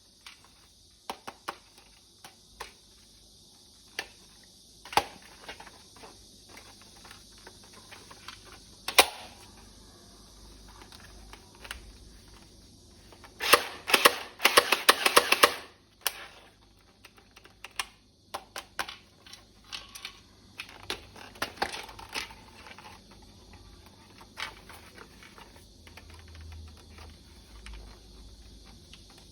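Plastic toy rifle parts being handled, giving scattered sharp clicks and knocks, with a rapid run of clicks about fourteen seconds in and another cluster of clicks near twenty seconds.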